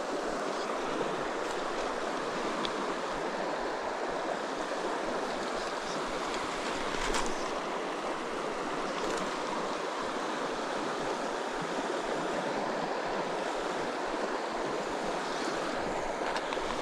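Steady rush of flowing river water, a constant wash with no let-up.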